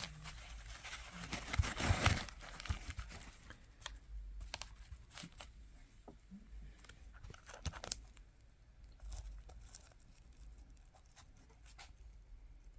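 Handling noises: a rustling, tearing burst of packaging about two seconds in, then scattered light clicks and rustles as a piece of rock is handled.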